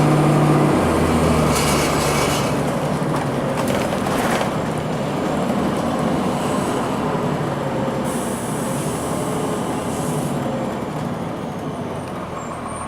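Cummins ISC straight-six diesel of a 2002 Blue Bird CS transit bus running while under way, heard from inside the bus with road noise; the engine note drops to a lower pitch about a second in, and the sound eases slightly toward the end.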